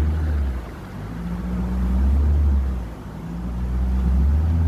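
Motorboat running along a river: a steady engine tone under a low rumble that swells and fades about every two seconds.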